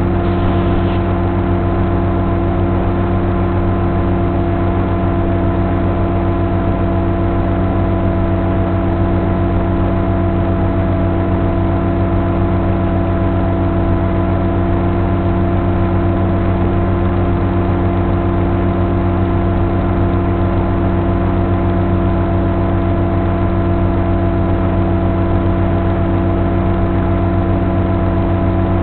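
Electric motor and propeller of a Sonic Model AR Wing FPV flying wing running at a steady throttle: a constant motor drone with several fixed pitches over a rush of noise.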